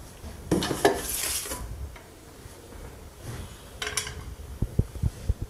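Metal parts of a mitre saw stand being handled and unpacked: a burst of clinking and rustling plastic wrapping about half a second in, a shorter clatter near four seconds, then a few brief low knocks.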